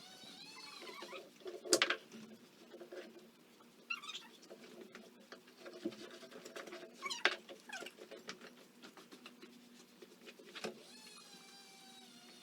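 Brushing and scraping on a miniature Shetland pony's thick shedding winter coat during grooming, with several sharp knocks along the way.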